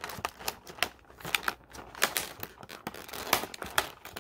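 Clear plastic blister packaging and cardboard of a toy-car multipack crackling and clicking in irregular sharp snaps as hands pry it open.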